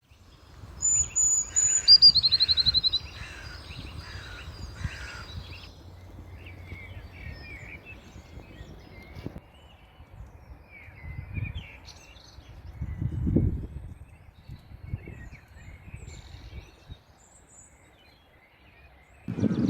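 Wild songbirds singing: a few thin, high notes, then a fast trill about two seconds in, the loudest part, followed by scattered quieter chirps. A low rumble runs underneath and swells briefly in the middle.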